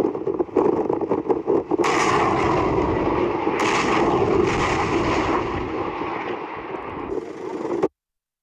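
Truck-mounted multiple rocket launcher firing a salvo: a rapid crackle of sharp blasts, then the rushing noise of rockets leaving the launcher. Fresh launches come about two, three and a half and four and a half seconds in. The sound cuts off suddenly near the end.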